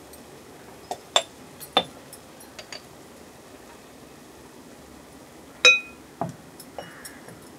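A small spoon clinking against glass spice jars and a metal cooking pot as powders are spooned in: a run of short sharp clinks in the first few seconds, then one louder clink that rings briefly, about six seconds in, and a few light taps after it.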